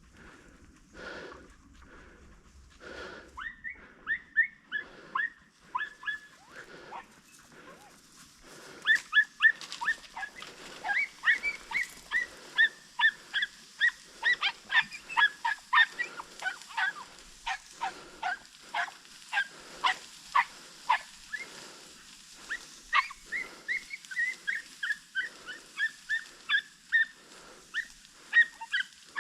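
Podenco hounds giving tongue on a rabbit's scent: rapid, high-pitched yelping, several yelps a second, that starts a few seconds in and grows louder and more continuous.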